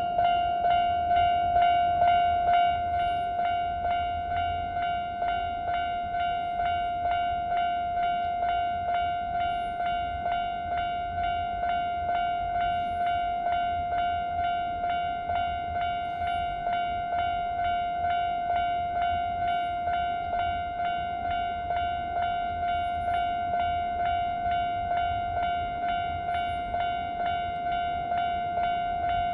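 Japanese level-crossing warning bell ringing its repeated electronic "kan-kan" tone, an even ring of about two strikes a second that keeps going, with a low rumble underneath that is strongest at the start.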